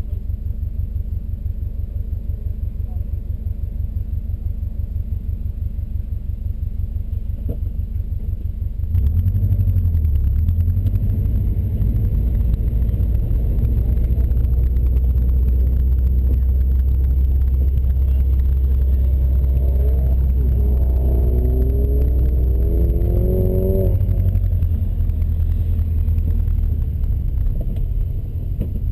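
2003 Subaru WRX's turbocharged flat-four heard from inside the cabin: a steady, pulsing idle, then about nine seconds in it pulls away hard and runs loud under load. A rising squeal comes in around twenty seconds and cuts off a few seconds later, and the engine eases off near the end.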